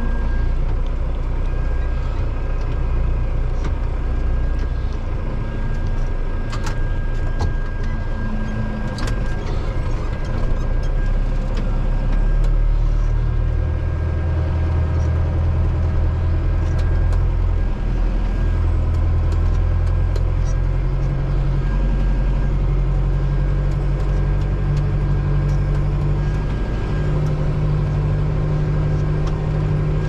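Valtra N91 tractor's diesel engine working steadily under ploughing load, heard from inside the cab, with a thin steady whine throughout. The engine note shifts a few times, and a couple of sharp clicks come through a few seconds in.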